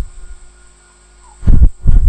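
Two short, heavy low thumps about half a second apart near the end, over a faint steady electrical hum; handling bumps as hands work the charger board close to the microphone.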